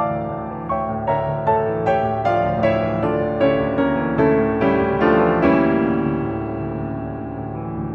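Background piano music: a steady run of single struck notes, about two or three a second, that ends on a held chord about two-thirds of the way through and slowly fades.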